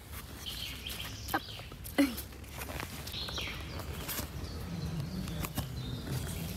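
A fabric pet-carrier backpack being closed by hand: a zipper drawn in short pulls, with rustling fabric and a few small clicks.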